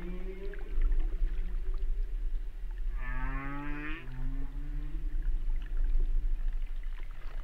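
Whale song: a few low calls and one rising call with many overtones about three seconds in, over a steady low hum.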